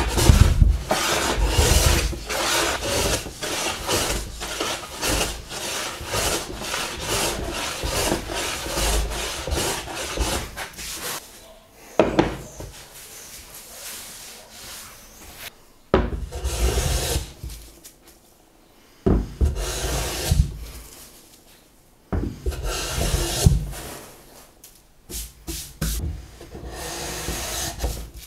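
Hand plane cutting shavings from a red oak board in quick back-and-forth strokes, each stroke a scraping swish of the blade on the wood. The strokes come fast and close together for about the first ten seconds, then in shorter runs broken by pauses.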